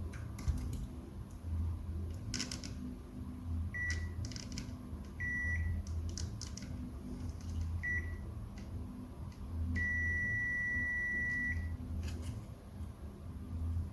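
Multimeter continuity buzzer beeping at a single high pitch: a few short beeps, then one long beep of nearly two seconds, each marking a closed circuit between the probe tips. Light clicks of the probes touching are heard between the beeps.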